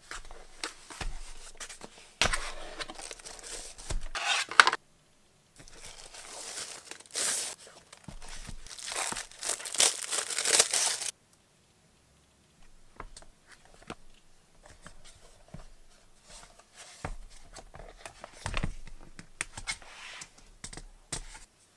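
Packaging being torn open and crinkled by hand, in two noisy stretches of tearing and rustling, followed by quieter handling rustles and light clicks.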